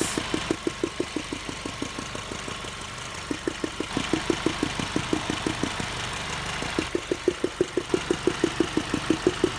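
2005 Ford Focus engine running with a rhythmic knock-like tapping, about six taps a second, easing off for a moment a couple of seconds in, then coming back strongly. The tapping comes from a loose rubber cover on a sensor in the engine bay, not from a true engine knock; the noise stops once the cover is pushed back into place.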